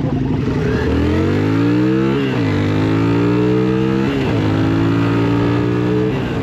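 Yamaha Virago cruiser's V-twin engine accelerating through the gears: the engine note climbs, drops at an upshift a little over two seconds in, climbs again, drops at a second shift about four seconds in, climbs once more and eases off near the end. Wind rush on the microphone runs underneath.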